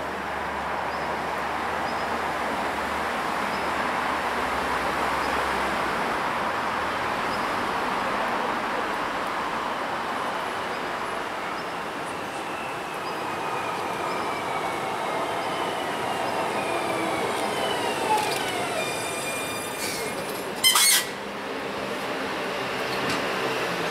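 Alstom Citadis Dualis electric tram-train pulling into a station and braking to a stop. Its running noise swells, then a whine falls steadily in pitch as it slows. A brief loud burst of noise comes near the end as it stands.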